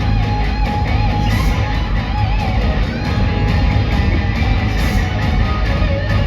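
Loud heavy rock music with distorted electric guitar and a steady driving beat, played over a show's sound system.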